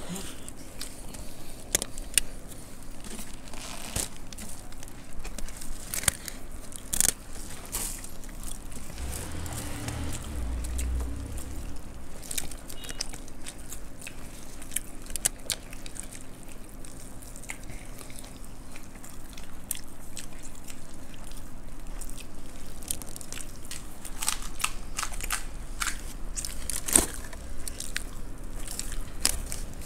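Close-up eating sounds: crunching and chewing of puffed rice and fried snacks such as samosas and pakoras, with crackling as hands mix and scoop the dry puffed rice. Scattered sharp crunches throughout, and a brief low rumble about a third of the way through.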